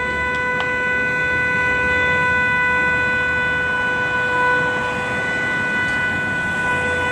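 A car horn stuck on, sounding one unbroken steady tone over a low rumble, the way a horn sounds when fire in the engine bay has shorted its circuit.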